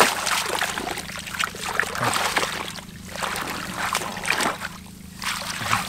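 Irregular splashing and sloshing of shallow water, as someone feels through submerged grass for fish by hand.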